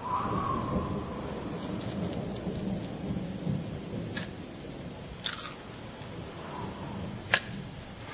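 Thunderstorm sound: a low, steady rumble of thunder with rain falling, and a few sharp cracks, the loudest near the end.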